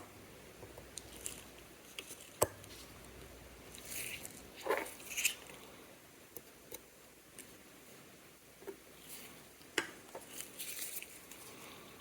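Small sharp clicks and taps of metal watchmaker's tools against a mechanical watch movement during disassembly, with a few brief scrapes and rustles. The two loudest clicks come about two and a half seconds in and near ten seconds.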